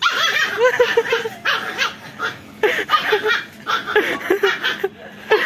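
People laughing in repeated short bursts.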